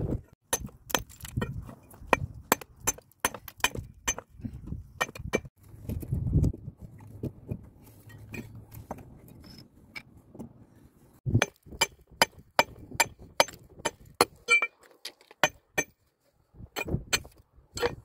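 Stones being handled and set in place by hand: irregular sharp clicks and clinks of stone knocking against stone, with a few duller thuds.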